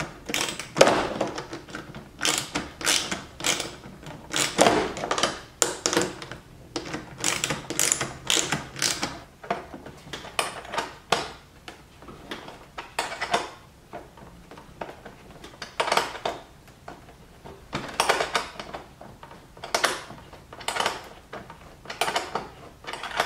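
Hand ratchet clicking in quick runs of strokes with short pauses between, as the screws drawing rear diffuser fins up against the bumper are tightened.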